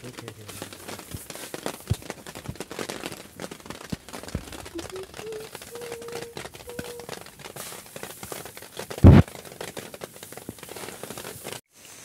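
Rustling, crackling patter of threshed rice grain being raked and turned by hand on a tarp, with one heavy thump about nine seconds in.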